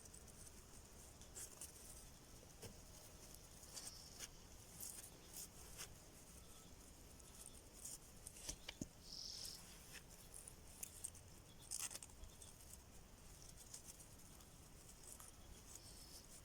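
Near silence with scattered faint clicks and ticks, and one brief faint high tone about nine seconds in.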